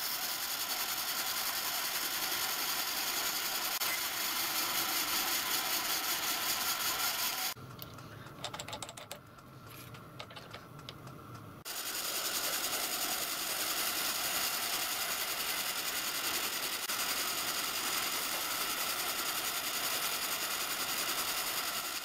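Drill press running, drilling small oil feed holes into the bearing housings of a lathe headstock casting: a steady motor and cutting noise. For about four seconds partway through it drops to a quieter low hum with a few clicks, then the loud running resumes.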